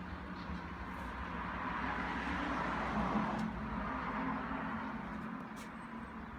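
A road vehicle passing by: its tyre and engine noise swells to a peak about three seconds in and then fades, over a steady low rumble.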